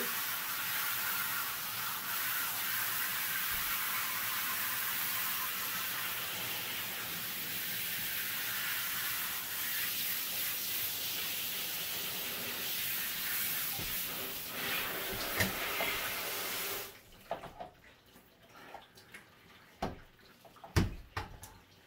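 Handheld shower sprayer running steadily as water sprays over a dog and into a bathtub, shut off suddenly about three-quarters of the way through. A few short knocks follow, one of them sharp near the end.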